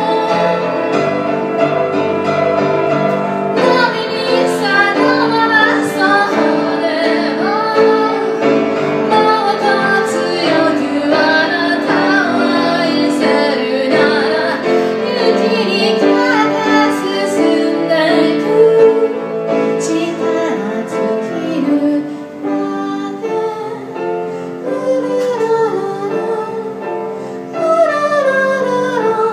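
A woman singing while accompanying herself on a grand piano, her voice carrying a wavering melody over sustained piano chords.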